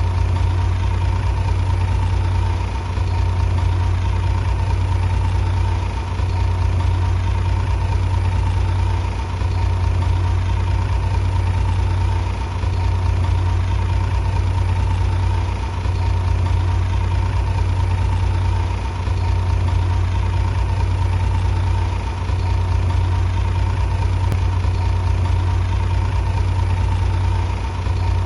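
Heavy diesel engine running steadily at a low, even pitch, its level dipping slightly about every three seconds.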